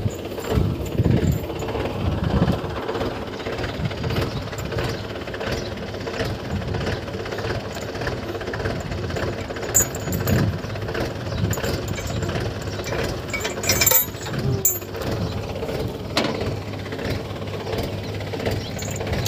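Diesel tractor engine idling steadily, with a few sharp metal clinks of a chain against the cultivator frame about two-thirds of the way through.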